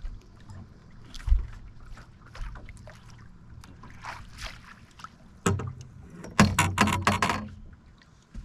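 A hooked crappie splashing at the surface as it is drawn to the boat and netted. About five and a half seconds in there is a thump, then a quick run of loud knocks and rattles for about a second: the fish flopping in the landing net as it comes aboard against the boat.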